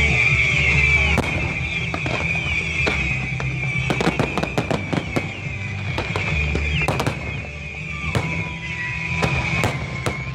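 Aerial fireworks going off in a string of sharp bangs and crackles, heavier from about four seconds in, over background music and a steady high tone.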